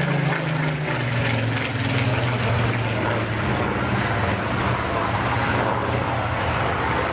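Spitfire PR19's Rolls-Royce Griffon 58 V12 piston engine and propeller in flight. The pitch drops in the first second as the aircraft passes, then holds as a steady drone.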